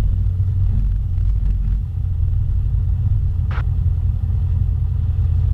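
Cessna Skyhawk's piston engine running steadily at taxi power, a low drone heard inside the cockpit as the plane rolls onto the runway before the takeoff run. A brief click about three and a half seconds in.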